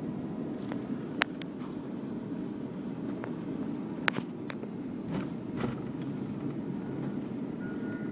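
Steady road and engine noise inside a moving vehicle's cabin, with a few sharp clicks, the loudest about a second in and about four seconds in.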